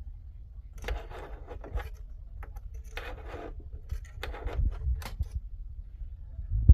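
Scraping and rubbing inside the opened mechanism of a Singer heavy-duty sewing machine, in several irregular strokes, as leftover thread and lint are worked out of it.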